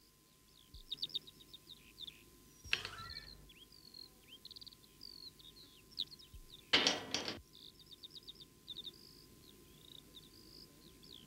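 Small birds chirping and trilling throughout. Two louder, brief noisy sounds about 3 s and 7 s in, fitting a small iron garden gate being opened and then shut.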